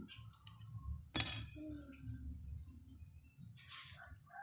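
A small plastic-cased CBB61 film capacitor being handled and pulled apart: one sharp click about a second in, then a short rustle near the end.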